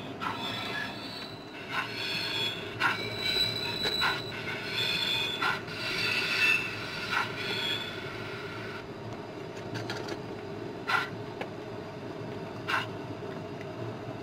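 O gauge model coal wagons and brake van rolling over the track, their metal wheels squealing and clicking over rail joints about once a second. The squeal fades about nine seconds in, leaving occasional clicks over a steady low hum.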